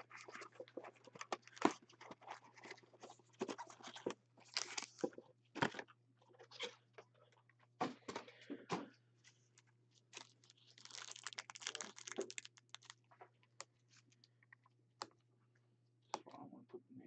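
Foil-wrapped football card packs crinkling and rustling as gloved hands pull them out of a cardboard hobby box and handle them. Scattered light crackles and clicks, with a longer stretch of crinkling about eleven seconds in.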